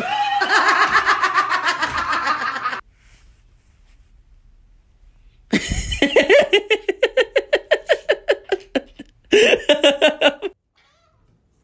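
Hearty human laughter in rapid pulses: a long bout, a lull of about three seconds, a second long bout, then a short burst near the end.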